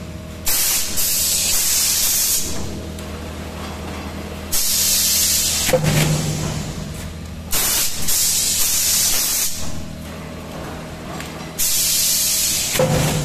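Nursery tray forming machine cycling: four bursts of compressed air hissing from its pneumatic system, with a clunk about six seconds in and again near the end, over a steady low hum.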